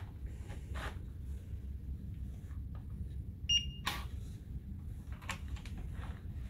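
Electronic key-card cabin door lock giving one short high beep as the card is held to the reader, followed at once by a sharp click of the lock releasing, then a few lighter clicks as the lever handle is pressed down. A low steady hum runs underneath.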